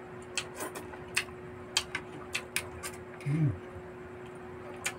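Mukbang eating sounds: chewing barbecued pork with a quick run of sharp, wet lip-smacking clicks, a short low hummed 'mm' a little past the middle, then one more smack near the end.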